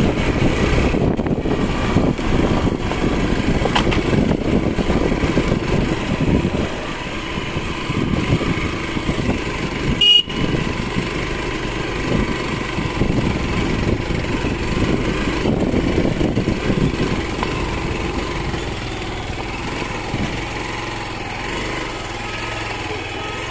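Motorcycle engine running with wind and road rumble on a rough dirt track, easing off over the second half. A brief sharp sound comes about ten seconds in.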